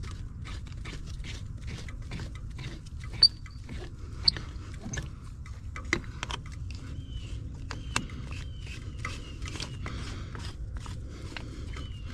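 Metal hose fittings clicking and scraping as a quick-connect coupler is fitted onto an outdoor spigot, with a few sharp clicks about three, four, six and eight seconds in. From about seven seconds in, a bird chirps repeatedly, each call a short falling note.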